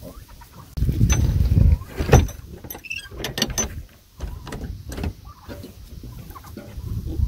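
Knocks and clatter from handling things, with a burst of low rumbling noise about a second in and several sharp knocks after it.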